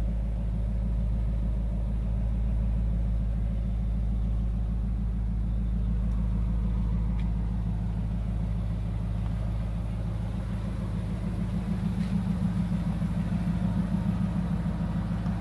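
Supercharged 5.4-litre V8 of a 2001 Ford Lightning SVT pickup idling with a steady low rumble; its pulsing grows plainer in the last few seconds.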